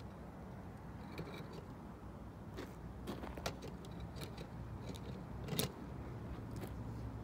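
Railroad crossing bells ringing faintly in the distance, heard as scattered light metallic ticks over a low, steady rumble.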